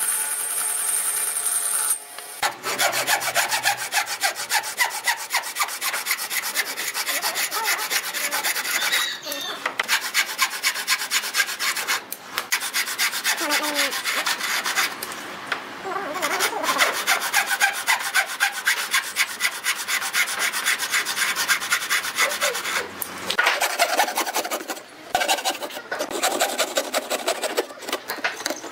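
A hand tool scraping across wood in rapid, repeated strokes, with a few short breaks between runs of strokes.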